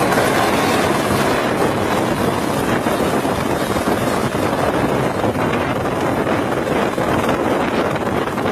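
Light helicopter hovering close by: a steady, loud rush of rotor and engine noise, mixed with its downwash buffeting the microphone.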